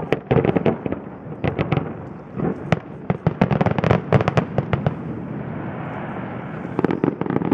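Fireworks display: rapid volleys of bangs and crackles, thick for the first four seconds or so, easing off briefly, then another cluster near the end.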